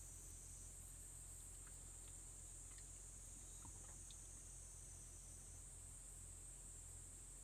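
Near silence: a faint steady high hiss and low hum, with a few faint ticks.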